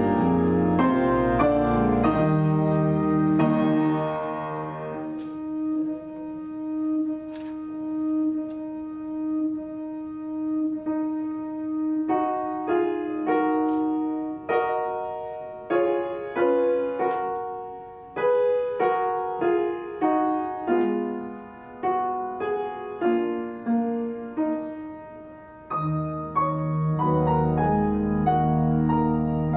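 Organ and upright piano playing a hymn together. Full held organ chords with deep bass open it, then a single held note sounds under the piano, and the middle is mostly piano notes, each dying away. The full organ chords return near the end.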